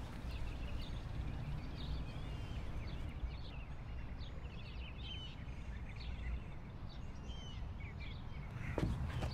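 Outdoor ambience: many small birds chirping and trilling over a steady low rumble. Louder knocks and rustling begin near the end.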